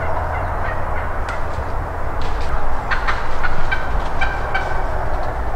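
Wild turkey giving a series of short calls, with a few crackles in dry leaf litter, over a steady low rumble.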